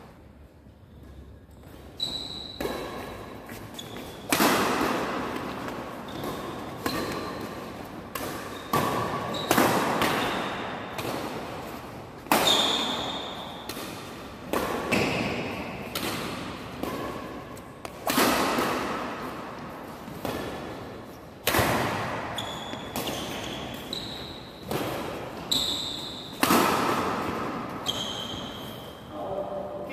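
Badminton rally in a reverberant hall: rackets hitting the shuttlecock about once a second, each sharp crack echoing off the walls, with short high squeaks of shoes on the court between hits. The hitting starts about two seconds in.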